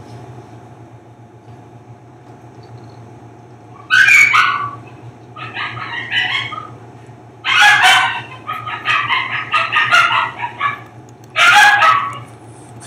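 Newborn husky puppies crying in high-pitched squeals, in four bursts from about four seconds in to near the end.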